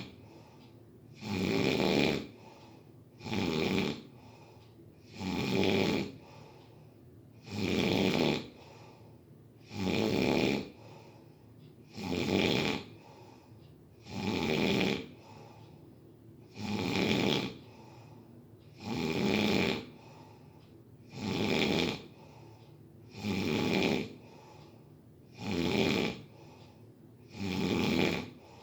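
Snoring in a steady rhythm, one snore about every two seconds, around a dozen in a row.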